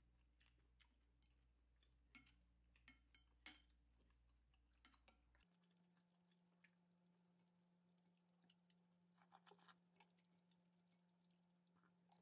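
Faint, scattered clicks and clinks of chopsticks and a ceramic soup spoon against a bowl of pho, over a low steady hum that shifts pitch partway through.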